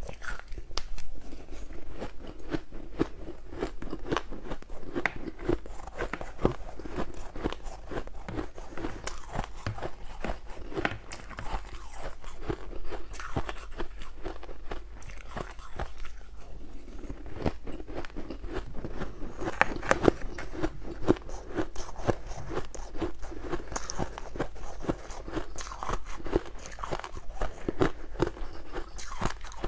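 Shaved ice being bitten and chewed: a dense, irregular run of small crackling crunches.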